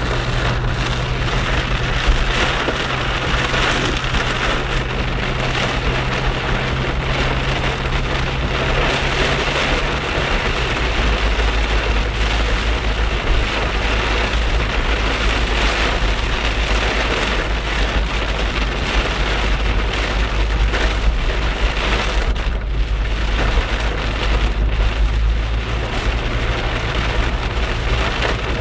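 Heavy rain drumming on a car's roof and windscreen, heard from inside the moving car, over a steady low hum of engine and road noise that shifts lower about ten seconds in.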